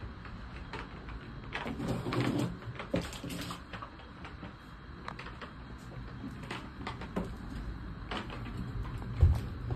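Scattered light knocks and clicks over a steady low rumble, busiest with some rustling a second or two in, and one heavier thump near the end.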